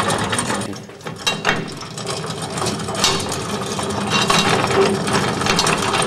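Cast-iron gearing of an antique hand-operated washing machine clattering and clicking as its flywheel is turned, the rack-and-pinion drive with a curved gear rocking a floating dolly agitator back and forth. The clatter dips briefly about a second in.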